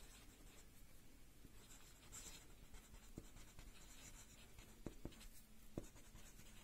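Felt-tip marker writing on paper: faint scratching of the pen strokes, with a few light ticks as the tip meets the page.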